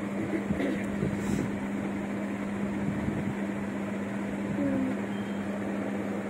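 Steady mechanical hum with an even hiss underneath, with a few faint rustles from the bedding.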